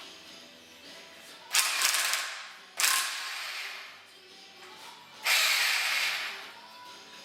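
Ratchet wrench clicking in three quick bursts, each about a second long, over faint background music.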